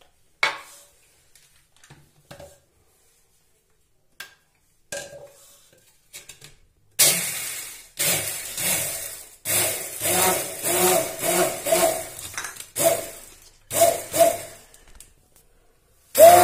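Braun hand blender whipping instant coffee, sugar and water in a plastic beaker, run in short repeated pulses from about seven seconds in. Before that there are only a few light knocks as it is set in place.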